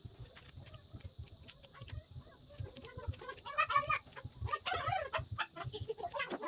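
Animal calls in two short chattering bursts about halfway through, over scattered clicks and low knocks.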